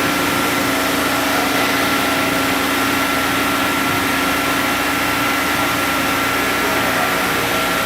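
CNC machine running steadily: a constant motor hum with a steady whine over an even hiss.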